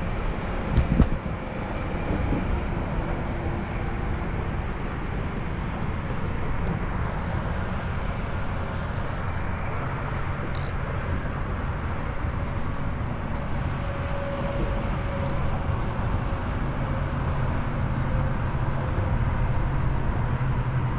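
Steady low rumbling background noise with no clear events, with a few faint clicks about nine to eleven seconds in.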